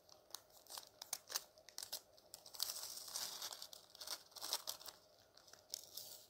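Crinkly packaging being handled and opened to take out a small item: uneven crinkling and rustling with short tearing sounds, busiest around the middle.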